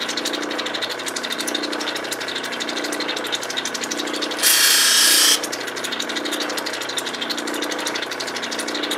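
Lapidary cabbing machine running, its grinding wheel spinning with a steady gritty whir and a low throb about once a second, as a Lightning Ridge crystal opal is ground on it. A louder hiss rises for about a second midway through.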